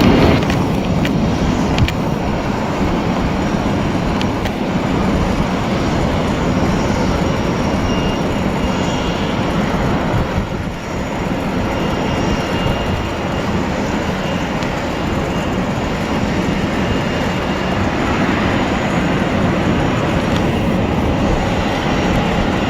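Jet airliner engines running: a steady, loud rumble with a faint high whine in the middle.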